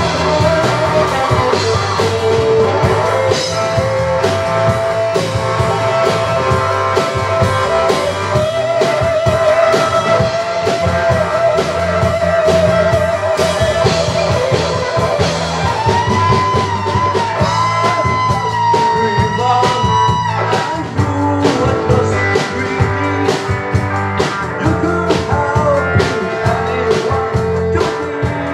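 Live rock band playing: an electric guitar carries long held notes that waver and bend, over a drum kit.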